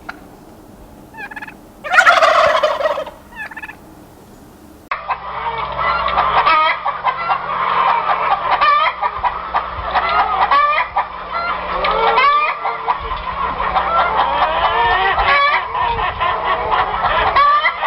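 Turkey gobbling once, a loud falling rattle about two seconds in, with a few short calls around it. After an abrupt change about five seconds in, a flock of turkeys calls continuously, many gobbles and calls overlapping.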